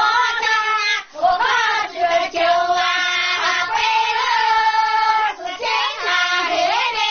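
Group of women singing a local toasting song, a folk mountain song, together without accompaniment, with long held notes and a short breath about a second in.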